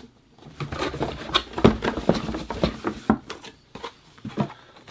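Hands going through a box of unboxed items, searching for a missing pin: an irregular run of rustles, taps and knocks from packaging and merchandise being moved.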